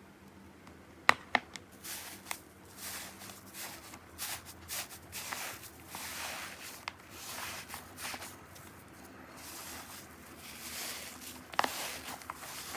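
Slime being squeezed and worked by hand: a few sharp clicking pops in the first couple of seconds, then a steady run of soft squishing and crackling sounds.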